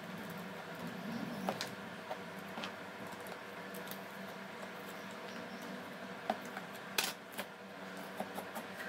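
Small scattered clicks and taps of metal tweezers and fingers working on the opened body and internal parts of a Huawei Y7 2018 smartphone, the sharpest click about seven seconds in, over a steady background hum.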